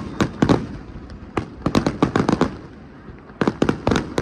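Fireworks bursting: sharp bangs in quick clusters, several at a time with short pauses between.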